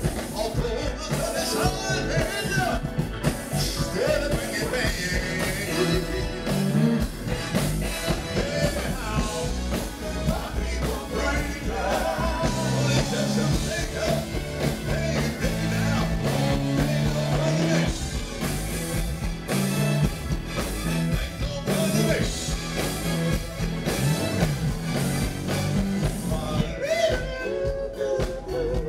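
Live band playing: a prominent electric bass line over drums and keyboards, with singing.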